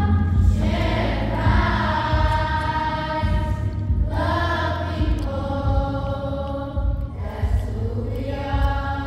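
Children's choir singing long held notes, in phrases that pause briefly about every four seconds, over a steady deep bass.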